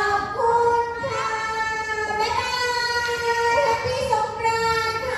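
A child's voice singing a melody in long held notes that step up and down in pitch.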